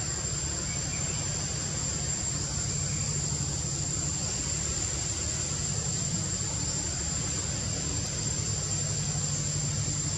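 Steady drone of insects in the trees, with one high, even whine, over a low steady rumble.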